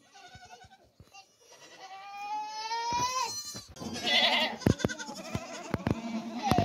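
Goats bleating: one long, slowly rising bleat, then a louder wavering bleat and another starting near the end. A few sharp knocks come in between.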